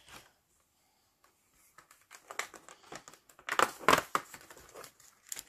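The cardboard door of a Kinder chocolate advent calendar being pushed in and torn open, with crinkling and tearing. It starts about two seconds in and is loudest around four seconds in.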